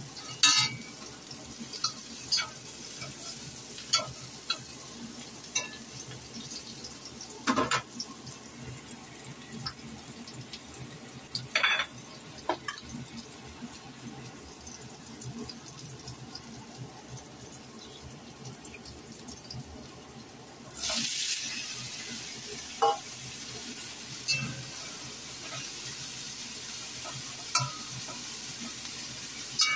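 Chopped garlic and chilli sizzling in hot oil in a wok, with scattered clicks and scrapes of a metal spatula against the pan. About two-thirds of the way through the sizzle suddenly gets louder and stays louder as a batch of shredded white ingredients goes into the oil and is stirred.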